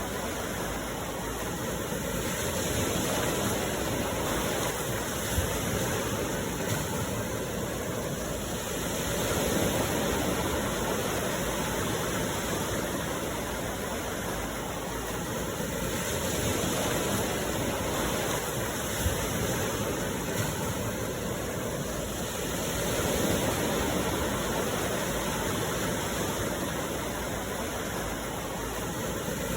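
Sea waves washing onto the shore in a steady rush, swelling and easing every six or seven seconds.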